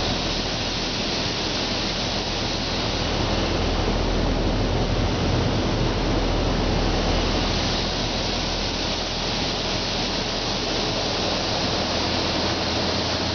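Automatic car wash spraying water onto the car's roof, heard from inside the cabin as a steady rushing hiss with a low machine hum underneath.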